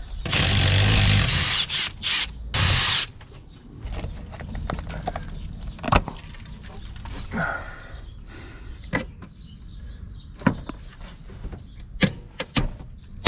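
Hand tools working loose a rusted brake master cylinder and its fittings on a truck firewall: a loud rush of noise for about two seconds at the start, then scattered sharp metal clicks and knocks.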